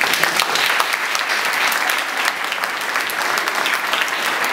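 Audience applauding steadily, a dense run of many hand claps.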